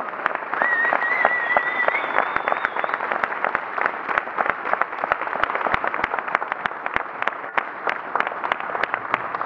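Audience applauding: many people clapping together in a large hall.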